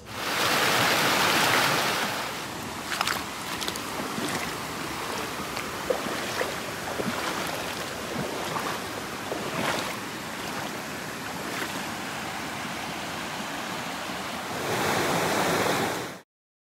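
A steady rushing noise with scattered clicks and knocks. It is louder for the first two seconds and again near the end, then cuts off suddenly.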